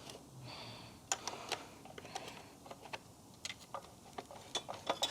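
A hand tool working at a stubborn part of a Kirby Generation 3 vacuum as it is taken apart, giving a string of small, irregular clicks and taps.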